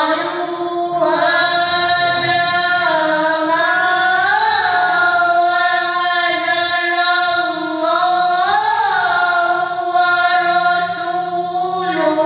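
A child reciting the Quran in the melodic tilawah style, holding one long ornamented phrase on a single breath, with a couple of rising turns in pitch.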